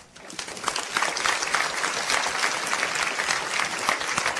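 Audience applauding, breaking out suddenly and holding steady: many hands clapping at once.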